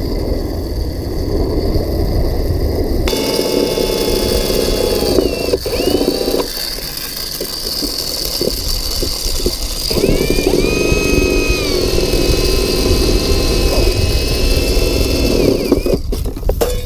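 Cordless drill drilling out steel rivets under a rusty steel feeder barrel: the motor whines in two long runs, the second rising in pitch as it spins up, with scattered clicks in the pause between and a few sharp knocks near the end. It is preceded by about three seconds of low rumbling noise.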